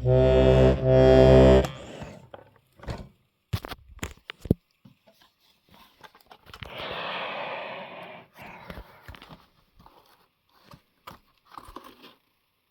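Hohner melodeon sounding a loud sustained chord with its bass for about the first second and a half, then stopping. After that come scattered clicks and knocks of the instrument being handled, and a breathy hiss lasting about two seconds in the middle.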